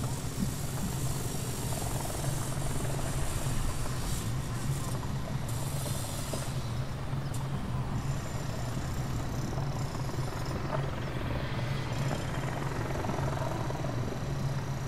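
Steady low drone of a large ship's engines under way, over an even hiss.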